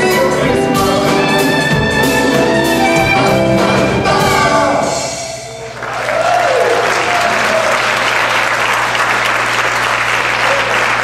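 Live jazz band with violin, piano, upright bass and drums playing the closing bars of a song, which die away about five seconds in. An audience then breaks into steady applause.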